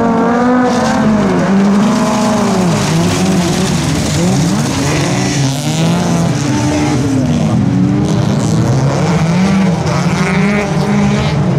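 A pack of folkrace cars racing together on a dirt track: several engines revving hard at once, their pitches rising and falling over one another as the drivers shift and lift.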